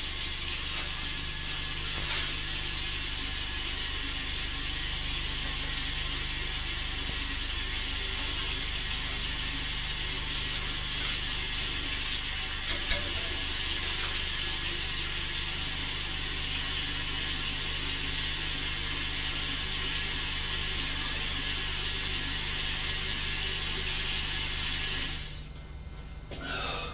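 Water running steadily from a tap into a bathroom sink, an even hiss that stops suddenly near the end.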